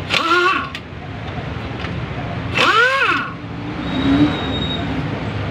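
Pneumatic impact wrench run in two short bursts on the main bearing cap bolts of a Mitsubishi 4D56 diesel engine block, its whine rising and falling each time.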